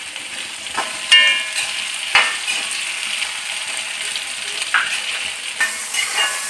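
Gooseberry pieces sizzling as they sauté in hot sesame oil in a metal kadai, stirred with a steel spoon that scrapes and clinks against the pan several times.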